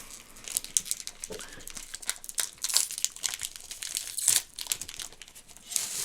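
A snack bag crinkling and crackling irregularly as it is handled and opened by hand.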